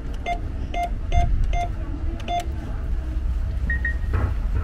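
Cash machine keypad beeping as keys are pressed: five short beeps in the first two and a half seconds, then two quick, higher beeps later on. A steady low rumble runs underneath.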